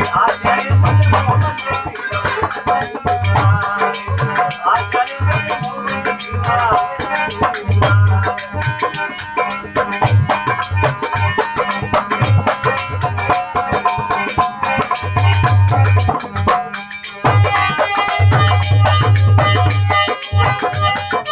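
Rajasthani folk bhajan music: a deep hand drum beating a rhythm under rattling percussion and a melody, with a low steady drone that drops out near the end.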